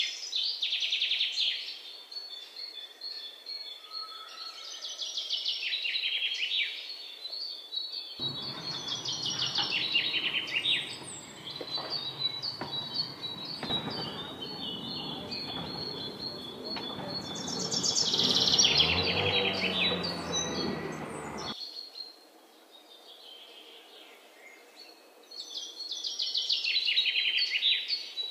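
Songbirds singing short, repeated trilled phrases over a thin steady high tone. From about a third of the way in, a loud rushing noise rises under the song and cuts off suddenly about three quarters through.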